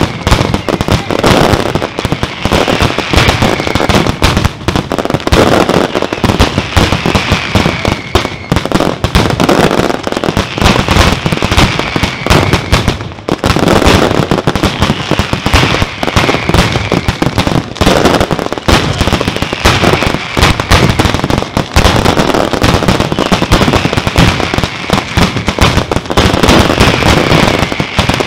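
Fireworks display: a dense, continuous barrage of aerial shell bursts, bangs and crackle, with a brief lull about 13 seconds in.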